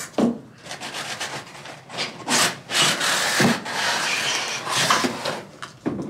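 Cardboard box being opened and slid off its cardboard packing insert: cardboard scraping and rubbing, loudest in the second half, with a sharp knock near the start.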